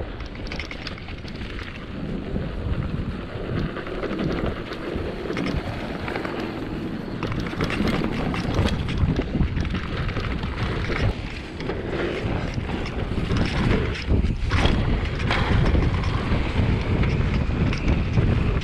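Wind buffeting a GoPro's microphone as a mountain bike rolls fast down a dirt singletrack, with tyre rumble and scattered clicks and rattles from the bike over bumps. It grows louder toward the end as the pace picks up.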